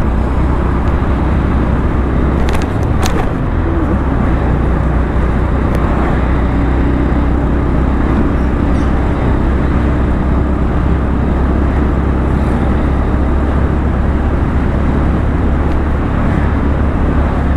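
Motorcycle riding along a road, its engine running steadily under a constant low wind rumble on the microphone.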